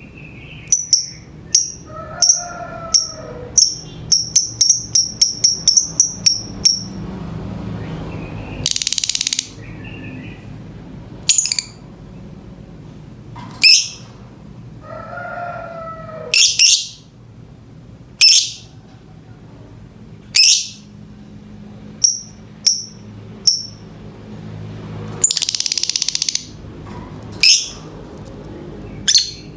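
Lovebird calling in breeding mood: a quick run of short, high chirps, then shrill, falling shrieks every second or two, with two longer harsh screeches.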